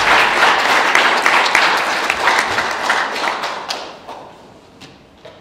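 Audience applauding, a dense clatter of many hands that dies away about four seconds in, followed by a few faint taps.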